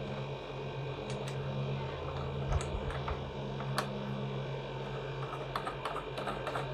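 Small scattered clicks and rattles of plastic hose fittings being handled and connected on a pressure washer, over a steady low hum.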